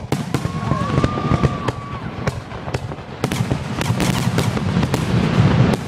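Aerial fireworks shells bursting in quick succession: sharp bangs several times a second over a continuous low rumble of booms that grows louder in the second half. A faint thin whistle sounds for about two seconds near the start.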